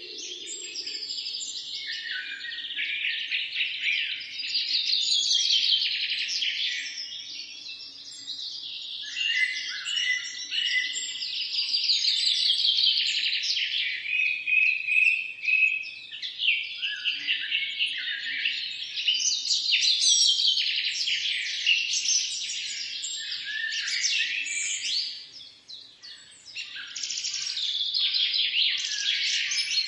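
A chorus of songbirds singing and chirping at once: dense, overlapping rapid trills and chirps, with a brief lull shortly before the end.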